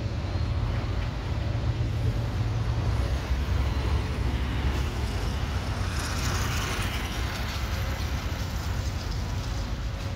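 Steady low rumble of street traffic, with a vehicle passing by in a swell of hiss about six seconds in.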